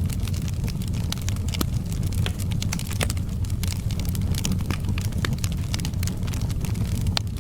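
Wood fire burning in a fireplace, crackling with frequent, irregular sharp pops and snaps over a steady low rumble.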